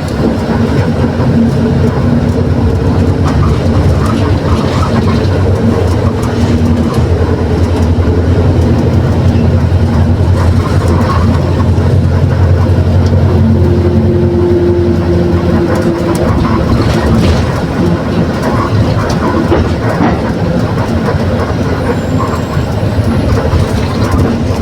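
Mercedes-Benz OF 1721 BlueTec 6 bus under way, its engine droning steadily with the differential growling. The deep drone eases about two-thirds of the way through, just after a higher whine comes in for a couple of seconds.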